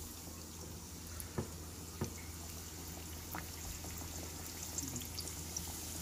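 Flour-coated chicken pieces deep-frying in hot oil: a steady sizzle with many small crackling pops that grow busier near the end. There are two sharp clicks, about one and a half and two seconds in.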